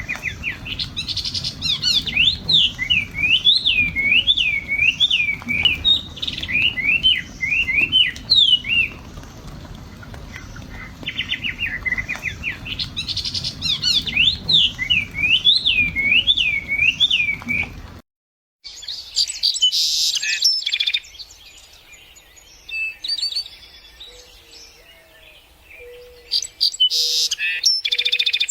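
Bird song: a quick run of repeated swooping whistled notes, sung twice, then, after a brief break, a different patter of chirps and calls.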